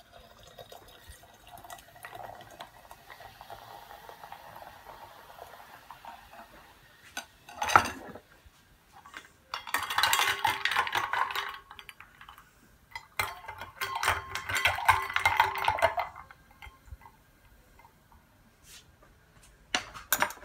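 Tonic water poured down a bar spoon into a balloon glass over ice, a faint fizz at first, then a single clink and two spells of spoon and ice clinking and rattling against the glass, each a few seconds long.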